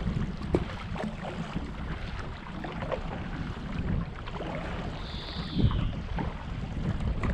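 Stand-up paddleboard paddle dipping and pulling through calm water, with small splashes and drips and wind rumbling on the microphone. About five seconds in, a short high whistle falls in pitch.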